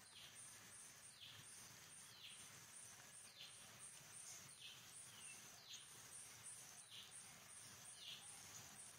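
Faint forest ambience: an insect chirping in an even, high pulse about three times a second, and a bird repeating a short down-slurred call about once a second.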